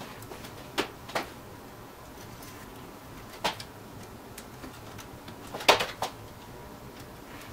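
Short clicks and knocks of hands handling a fine wire and the clamps on a copper-and-brass radiator core: five sharp taps, the loudest near the end, over a low steady hum.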